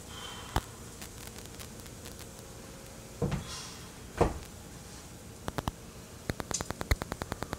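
Flour tortilla frying in a little olive oil on a hot griddle pan: a faint steady sizzle, with two short utensil knocks about three and four seconds in and a quick run of light clicks near the end.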